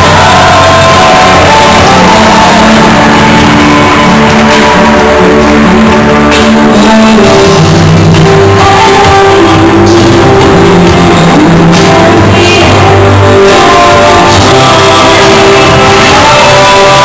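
Loud rock music with singing, played over the ice rink's sound system as skating accompaniment.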